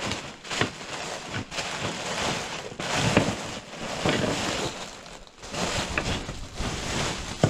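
Fibreglass insulation being pulled off a wall and stuffed into a plastic bin bag: irregular rustling and crinkling.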